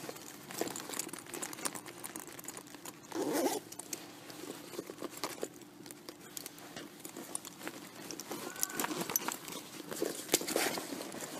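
Hands rummaging through a bag: fabric rustling and scattered small clicks and knocks as things inside are shifted about.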